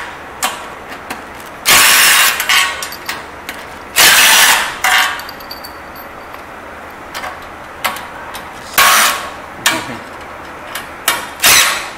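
Cordless drill/driver running in four short bursts of under a second each, backing hex bolts out of a lift's steel leg, with small clicks of metal parts between the bursts.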